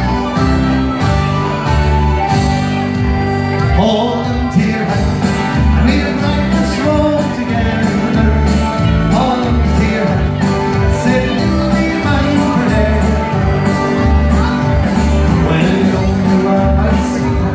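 Live band music played loud over PA speakers, with a steady bass beat under keyboard and guitar.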